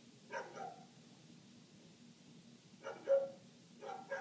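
A neighbour's dog barking in short bouts, heard through closed windows: two quick barks just after the start, then a louder bark or two around three seconds in, and more barks beginning near the end.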